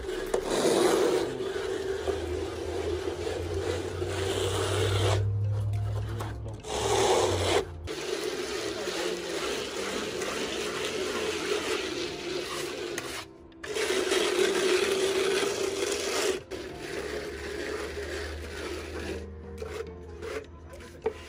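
Plastic float rubbing freshly applied acrylic structural render (grain about 2 mm) against a facade wall. It makes a rasping scrape that stops and starts several times.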